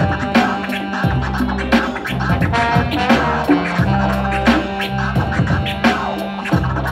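Live hip hop band playing an instrumental passage, with a DJ scratching records over a steady beat and deep held bass notes.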